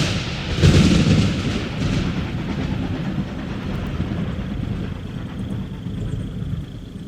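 A deep rolling rumble, swelling about a second in and slowly fading away.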